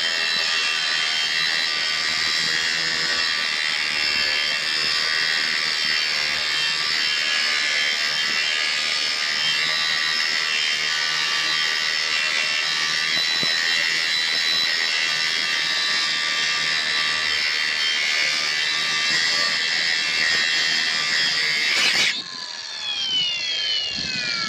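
Kobalt 24-volt brushless cordless angle grinder running steadily with a high whine. About 22 seconds in it is switched off and winds down, its whine falling in pitch.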